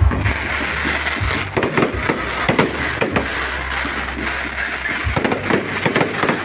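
Fireworks going off: many irregular bangs and pops over a dense crackle, with a steady low rumble underneath.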